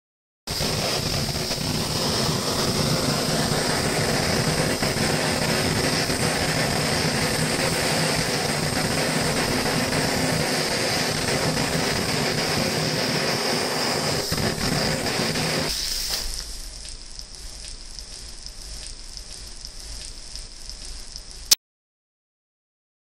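Handheld kitchen blowtorch flame hissing steadily while caramelizing the sugar topping on a custard. About two-thirds of the way through, the hiss drops to a quieter level. It ends with one sharp click.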